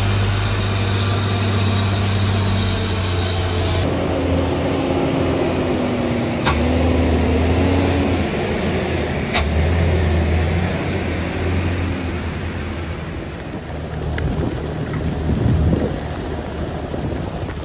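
Diesel truck engines running as heavy trucks pull up a steep mountain road, one engine giving way to another about four seconds in, with two sharp clicks. Near the end the engines fade and rain on the road takes over.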